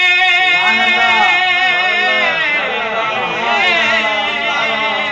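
A man's voice holding a long, drawn-out sung note in a devotional manqabat recitation, the pitch wavering and ornamented from about a second in, and breaking off at the very end.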